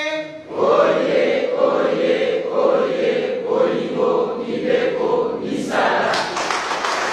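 A group of voices chanting together on one held pitch, then about six seconds in a louder burst of crowd noise with clapping and shouting breaks in.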